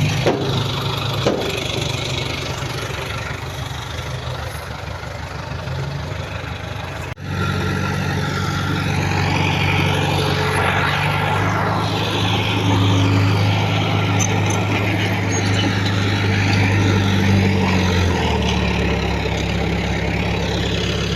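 Diesel engine of heavy earthmoving equipment running steadily. About seven seconds in the sound cuts abruptly to a louder, steadier engine note, which shifts in pitch near the end.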